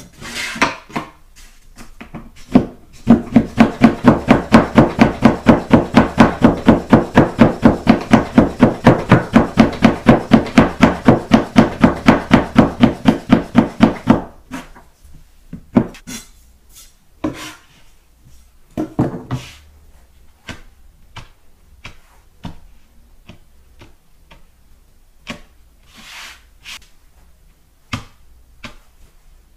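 Soba knife chopping folded buckwheat noodle dough through to a wooden board, guided along a wooden guide board: a fast, even run of knocks, about four a second, for some eleven seconds, then a few scattered single knocks.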